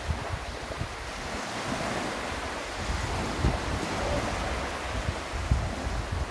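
Small waves washing onto a sandy shore, with gusts of wind rumbling on the microphone.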